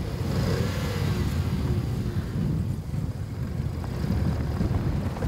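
Volkswagen Polo's engine revving gently as the driver eases the clutch to drive the car out of deep snow. The revs rise and fall in the first second or so, under strong wind noise on the microphone.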